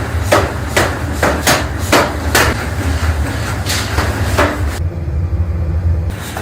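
Repeated hammer blows, about two to three a second and somewhat uneven, over a steady low rumble; the blows pause for a moment near the end.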